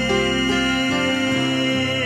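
Instrumental passage of a Korean contemporary Christian worship song: long held chords with no singing, the bass shifting about halfway through.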